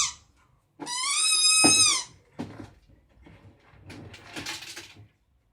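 A pet dog's high, whistle-like cry: one long held call about a second in, level in pitch and dropping at the end. It is followed by fainter short noisy sounds.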